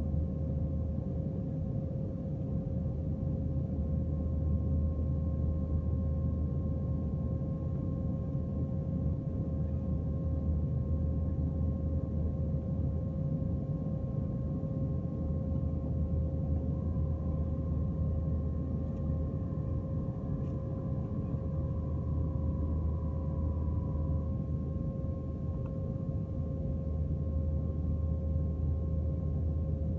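Cabin noise inside an Airbus A321 climbing after takeoff: a steady low rumble of engines and airflow with a faint, constant whine over it. A second faint whine joins for several seconds a little past the middle.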